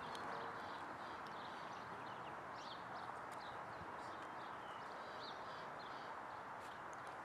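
Small birds chirping here and there over a steady outdoor background hush.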